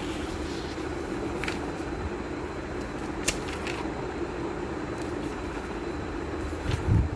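Pages of a hardbound book turned by hand, a few brief papery rustles, over a steady low hum; a louder low thump near the end.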